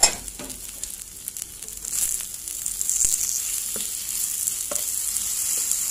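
Beetroot, carrot and onion sizzling as they stir-fry in oil in a pan, the sizzle growing louder about two seconds in. A spatula clacks sharply against the pan at the start and taps it a few more times as the vegetables are turned.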